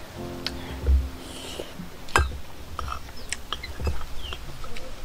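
Scattered sharp clicks and taps of a spoon and dishes handled while vegetables are prepared by hand, with a few small bird chirps near the end.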